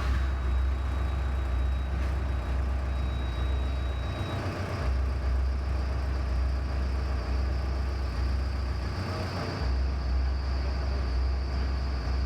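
Komatsu excavator's diesel engine running hard with a heavy low rumble. It comes up abruptly, as if revved to work the hydraulics, and the low rumble drops off briefly twice.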